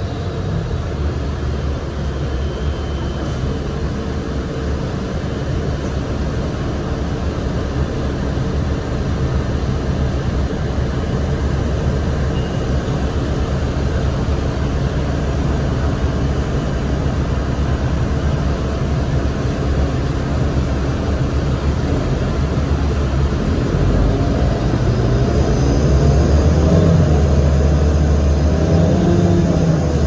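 Cabin sound of a New Flyer D35LFR transit bus under way: its Cummins ISL diesel engine and Allison transmission run with a steady low rumble mixed with road and tyre noise. The sound grows louder near the end.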